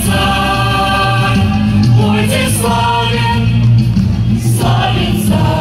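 A choir of women's voices singing a Christmas hymn in long held notes, phrase after phrase.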